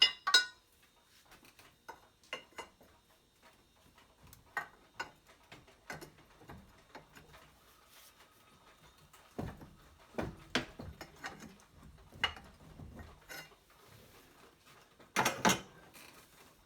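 Scattered metallic clanks, knocks and scrapes as the VG30DE cylinder head is worked loose from the engine block, with louder clatters at the very start and about fifteen seconds in.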